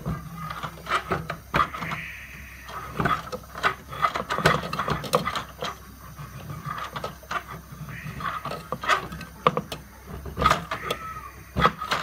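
Toy washing machine running with its drum mechanism grinding: a steady low hum under irregular plastic clicks and rattles. It sounds terrible, the sign of a faulty mechanism.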